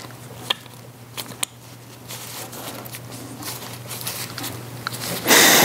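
A plastic protective cap being pressed onto a fitting port of a power steering pump by gloved hands: faint scattered clicks and handling rustles, with a short, louder rustle near the end.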